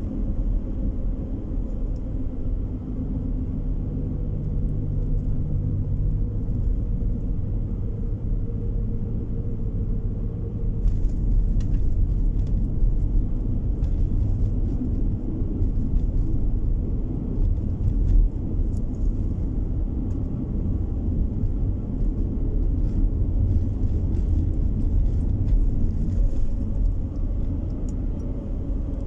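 Car driving on the road: a steady low rumble of tyres and engine, a little louder from about eleven seconds in.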